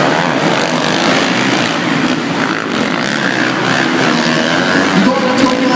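Several supercross dirt-bike engines running hard around the track, their revs rising and falling over one another in a loud, continuous din.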